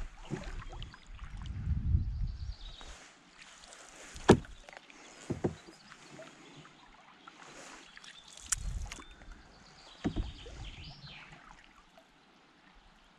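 Canoe being paddled: a few sharp, irregular knocks of the paddle against the hull, the loudest about four seconds in, with a low rumble near the start.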